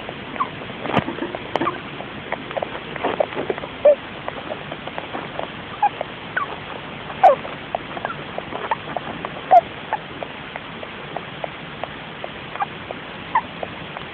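Russian dwarf (winter white) hamster making tiny squeaks and clicks in its sleep, short and irregular, several a second, with a few louder chirps among them. Recorded on a phone.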